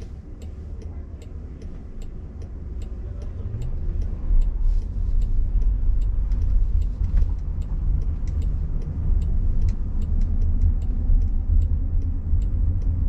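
Cabin noise of a Waymo Jaguar I-Pace electric robotaxi driving: low road and tyre rumble that grows louder about four seconds in as the car gathers speed. A light, regular ticking runs throughout.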